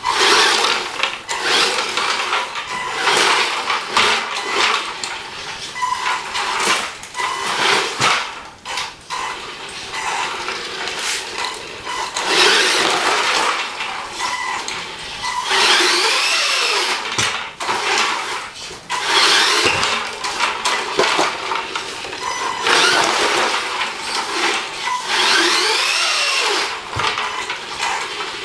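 Stock 540 brushed electric motor and gearbox of a Tamiya TL-01 radio-controlled truck whining in repeated throttle bursts, the pitch rising and falling as the truck speeds up and slows. It is on a test run after a rebuild with new bearings.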